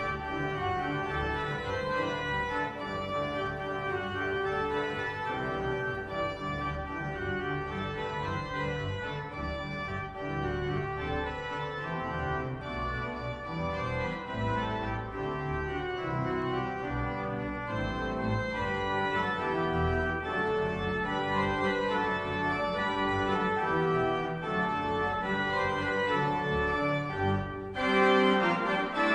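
Church pipe organ playing a postlude after the benediction: full sustained chords over a moving line, with pedal bass beneath. It grows louder and brighter near the end.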